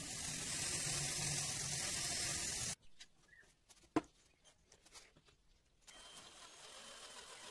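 Cordless drill running under load, its bit grinding into steel, for about three seconds before it cuts off abruptly. A few light ticks and one sharp click follow, then a small power tool starts up with a quieter steady whir near the end.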